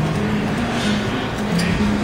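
Music: a simple melody of short held notes over a steady wash of noise.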